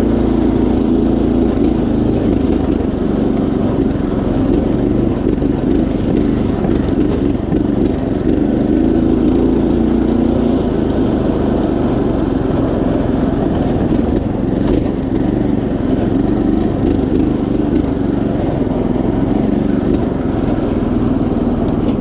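Predator 212 single-cylinder four-stroke engine on a Craftsman GT5000 riding mower, running steadily as the mower drives along a dirt trail.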